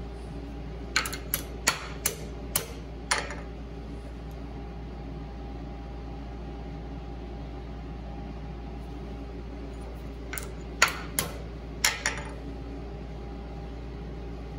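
Sharp metal-on-metal taps as a bent steel carburetor bolt clamped in a bench vise is worked straight. Six quick taps come about a second in, then four more near the end, over a steady hum.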